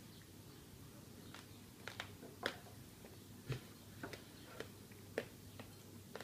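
Faint, scattered small clicks and taps of hands handling a glass and a plate at a table, with one duller thump about three and a half seconds in.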